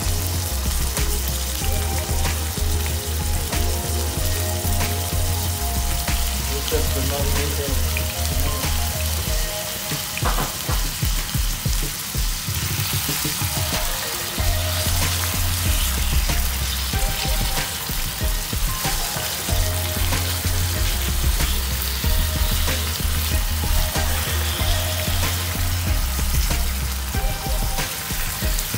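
Marinated beef and onions sizzling as they fry in a frying pan, stirred now and then. Background music with a low bass line plays under it and drops out for a few seconds midway.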